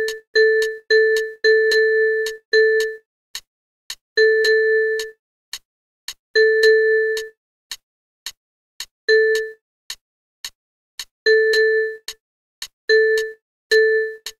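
Software playback of a rhythm exercise: one bell-like electronic tone on the note A sounding short and longer notes with rests between them. A metronome click runs under it at about two a second.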